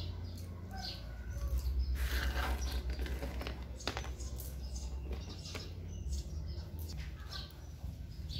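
Small birds chirping in short, scattered calls, over a steady low hum. A few sharp clicks of small metal hardware being handled on a wooden board come in between.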